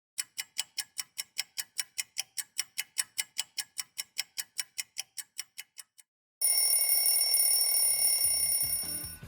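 Clock ticking about four times a second, then after a short pause an alarm clock ringing with a steady, high ring that stops near the end, signalling wake-up time.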